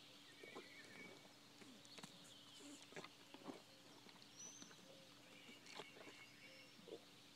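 Near silence: faint outdoor background with a few short bird chirps and scattered soft thuds from a horse's hooves.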